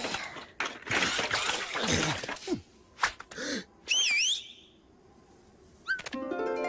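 Cartoon sound effects: bursts of clattering noise and comic vocal sounds sliding down in pitch, then a warbling whistle about four seconds in. Near the end a rising chirp leads into a sustained music chord.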